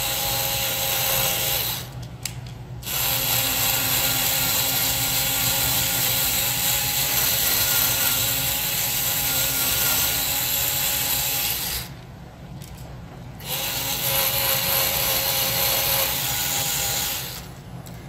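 Small power drill running with a small bit, drilling out a stripped screw in a laptop's plastic bottom case. The motor runs steadily in three stretches, stopping briefly about two seconds in and again around twelve seconds in, and stops just before the end.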